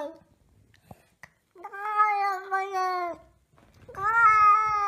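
Grey Scottish Fold cat yowling angrily in long, drawn-out, steady-pitched calls: the tail of one call at the very start, one of about a second and a half in the middle, and another starting near the end.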